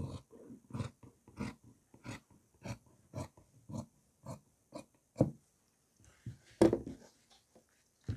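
Large tailor's scissors cutting through coat-sleeve fabric on a table, a steady run of snips about one every half second, the loudest near the end.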